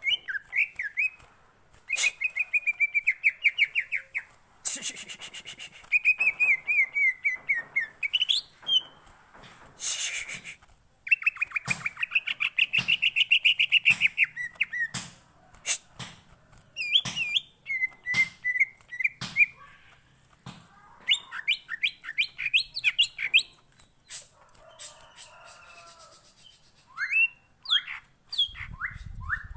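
Cucak ijo (greater green leafbird) singing in fast, loud phrases of rapidly repeated high notes and sharp chips, with short pauses between phrases.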